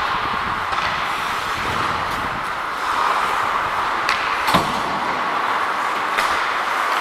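Ice hockey play on the ice: steady scraping of skate blades, with a few sharp clacks of sticks and puck, the loudest about four and a half seconds in.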